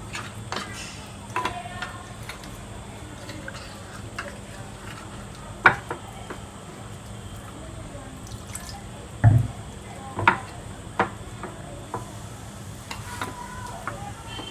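Water being added to a bowl of cornflour and spices and stirred into a thick batter, with a few sharp knocks of the spoon against the bowl.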